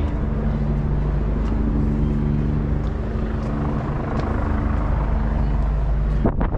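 Motor vehicle engine running steadily close by: a low rumble with a few steady hum tones, over general street noise. The sound breaks off briefly near the end, with a couple of clicks.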